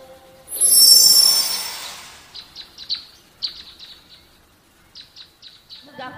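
A loud rushing whoosh with a high shimmer about half a second in, fading over the next two seconds, followed by birds chirping in short, repeated high calls. Music with a wavering tone comes in near the end.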